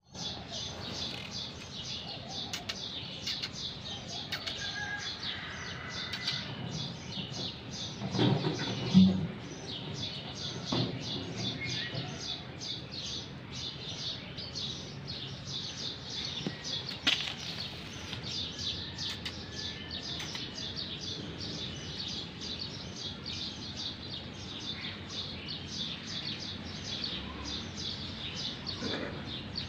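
A cat lapping milk from a plastic cup: a steady train of quick wet clicks, about four a second. A dull thump about nine seconds in is the loudest moment.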